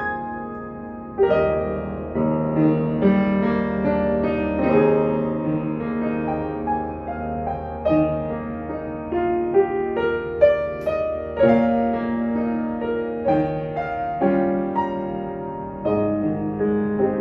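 A 1960s Hamburg-built Steinway & Sons Model Z upright piano being played: chords and melody notes struck one after another, each ringing on and fading.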